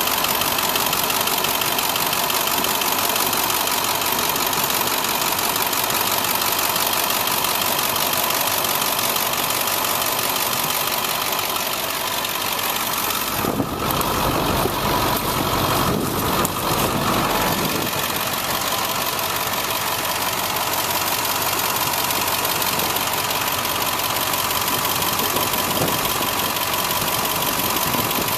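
The diesel engine of a 1999 International digger truck idling steadily, heard up close in the open engine bay, with a steady high whine riding over it. About halfway through come a few seconds of low rumbling from the microphone being handled.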